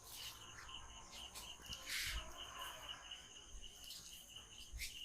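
Faint insect chirping, a steady high trill pulsing about five times a second, with scattered soft clicks and a brief rustle about two seconds in.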